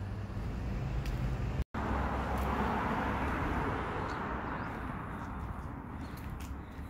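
A car passing along the street, its tyre noise swelling to a peak a couple of seconds in and then fading away. The audio cuts out for an instant before the car arrives.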